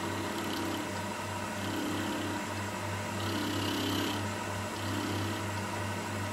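Milling machine running with an end mill cutting an aluminium alloy main bearing cap. It makes a steady hum that pulses about four times a second, and the cut turns brighter and hissier for about a second near the middle.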